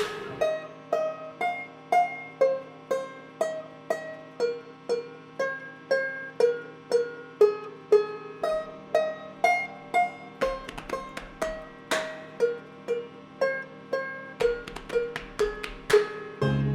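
Soothing background music: an even run of plucked notes, about two or three a second, over a held low tone.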